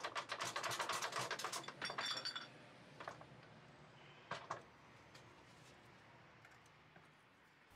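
Faint metallic clicking and clinking as an A-series gearbox's final drive is worked free and lifted out of the casing, with a brief ring of metal about two seconds in. Two single light clicks follow.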